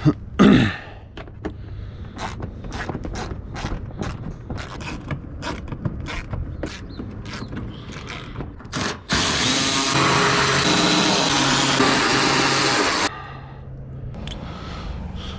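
Cordless power drill running steadily for about four seconds and stopping suddenly, removing the 10 mm bumper fasteners, after a run of quick sharp clicks and taps from the hardware being worked.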